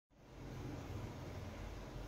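Faint steady background hiss with a low hum: room tone.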